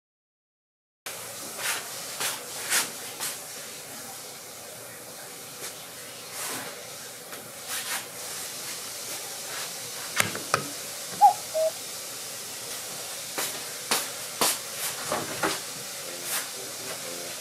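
Quiet kitchen room tone with a steady hiss, broken by scattered light clicks and taps of small objects being handled.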